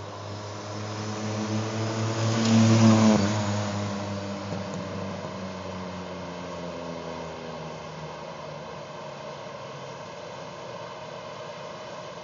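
Chevy Metro driving past: its engine note grows louder as it approaches, peaks about three seconds in as it goes by, then drops in pitch and fades into the distance.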